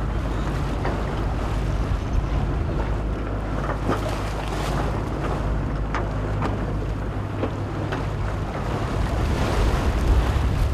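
Wind buffeting the microphone over the rush and slap of choppy sea water, with a steady low boat-engine drone underneath. The noise swells a little near the end.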